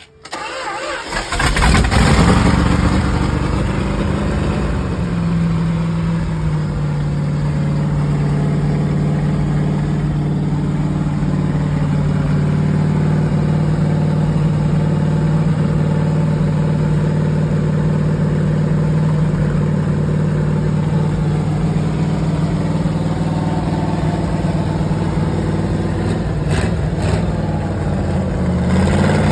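Freshly built Mopar 440 big-block V8 on an engine run stand catching and firing up about a second in, then running steadily through open-ended header pipes on its first break-in run. Its speed drops slightly a few seconds in and picks up again near the end.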